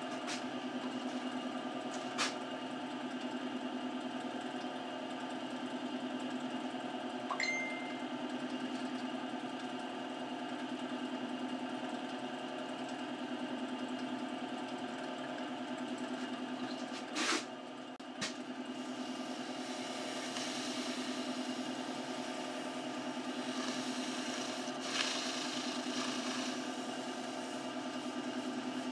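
Wood lathe motor running steadily with a constant hum, with a few faint clicks and knocks from work at the spinning piece.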